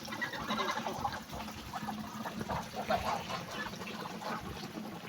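Farm geese and ducks calling together, many short overlapping calls.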